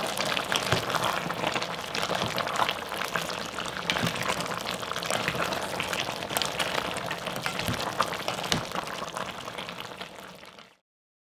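Soy-braised chicken and glass noodles bubbling and crackling as they simmer in a pot, with small clicks of utensils stirring it. The sound cuts off suddenly near the end.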